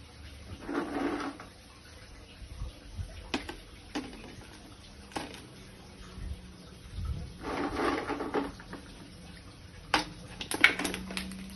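Plastic aquarium bioballs being handled and dropped into a plastic bottle: scattered sharp clicks and clatters, loudest in a quick run near the end, with two spells of rustling handling noise.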